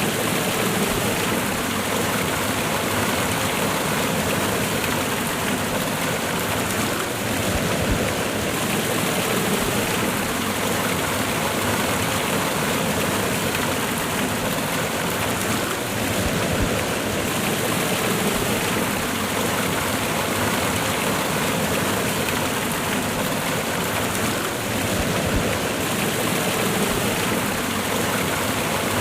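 Waterfall cascade: water rushing steadily over rocks.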